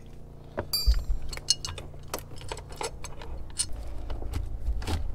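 Irregular metal clicks and clinks as a battery hold-down bracket and its bolts are fitted over a car battery, with one bright metallic ring about a second in. A low rumble runs underneath.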